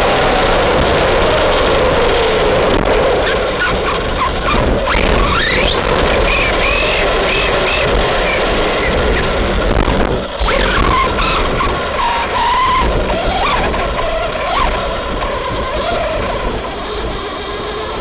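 Arrma Big Rock RC truck driving hard: its electric motor whines up and down with the throttle over a steady rush of tyre and ground noise.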